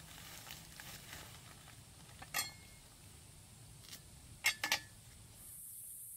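Knife and clay dishware clinking as they are handled. There is a single sharp clink about two seconds in and a quick double clink about halfway through. A steady high hiss comes in near the end.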